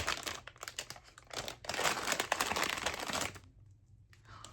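Blind box packaging being torn and unwrapped by hand, the wrapper crinkling and rustling: a short burst at the start, then a couple of seconds of dense crinkling that stops about three seconds in.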